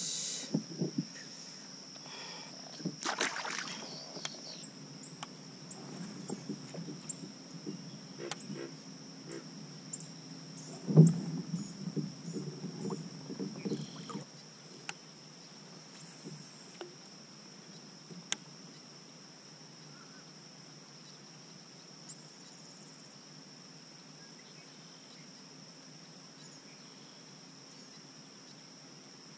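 Kayak paddle strokes splashing, with knocks against the hull, through the first half, the loudest knock about eleven seconds in; after that the paddling goes quiet. A steady high insect drone runs underneath.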